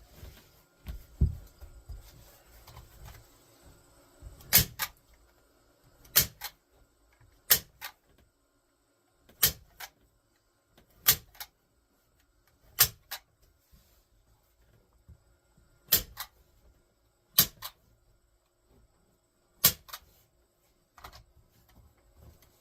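Hand staple gun firing into wood, about nine sharp snaps one every couple of seconds, most with a lighter second click right after. A low thump comes about a second in.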